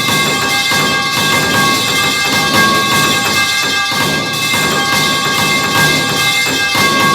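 Metal pipe falling sound effect played over and over in close succession, the clangs piling into a continuous metallic din with a steady ringing of several clashing tones and many sharp strikes.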